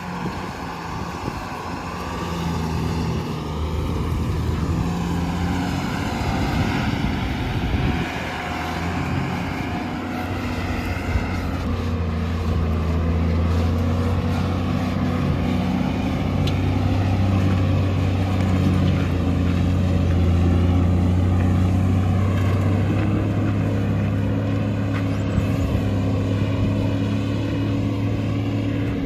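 JCB 3DX backhoe loader's diesel engine working under load while digging and loading mud, its pitch shifting up and down, with a higher whine rising and falling over the first ten seconds or so. The engine note drops near the end.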